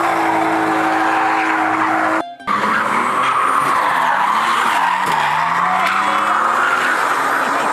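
A car drifting, with the engine held at high revs and the tyres squealing. The sound breaks off briefly about two seconds in, and the engine note wavers and drops midway through.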